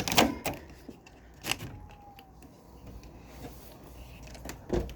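Sticky plastic side panels of a window air conditioner being worked: a few sharp clacks and knocks, one near the start, one about a second and a half in, and one near the end, with quieter scraping between.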